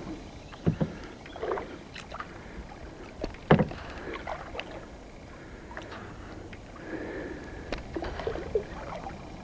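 Kayak being paddled: soft swishes and splashes of the paddle in the water, with a scattering of sharp knocks and clicks, the loudest about three and a half seconds in.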